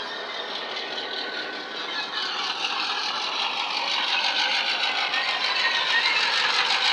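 Model 121 class diesel locomotive's LokSound 5 sound decoder playing a Wheeltappers diesel engine sound through a double iPhone speaker, getting steadily louder as the locomotive approaches.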